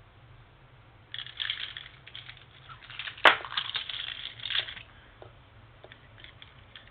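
Rustling, crackling handling noise close to the microphone, with one sharp click about three seconds in.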